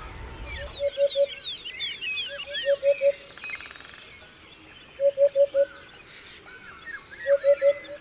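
Eurasian hoopoe calling its low, hollow 'oop-oop-oop' in short groups of three or four notes, four times, over a chorus of smaller songbirds chirping and trilling in oak woodland pasture.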